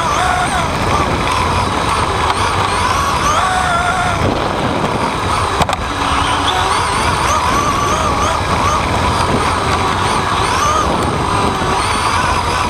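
Onboard sound of an RC off-road buggy lapping a dirt track: its motor and drivetrain whine rises and falls in pitch with the throttle over a steady rumble of tyres, chassis and wind. One sharp knock a little before halfway.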